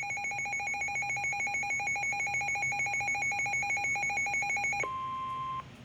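Weather radio alert signal: an electronic beep pulsing rapidly, about ten pulses a second, for nearly five seconds. It then changes to a single steady tone that lasts under a second and cuts off, the tail of the weather radio's warning alarm tone.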